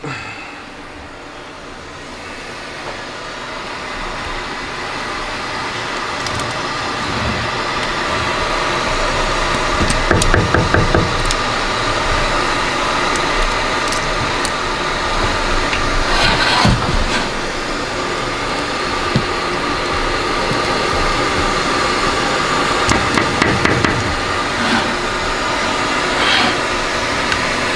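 Silicone spatula scraping thick soap paste off a stick blender's metal shaft and knocking against it and the steel pot rim, in scattered clusters of knocks and scrapes. A steady machine hum runs underneath, growing louder over the first several seconds.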